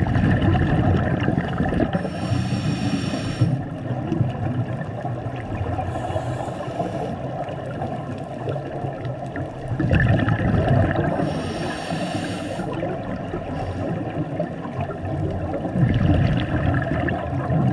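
Scuba breathing heard underwater through a diver's regulator: a hiss on each inhale and a bubbling rumble of exhaled air on each exhale, over a few slow breaths.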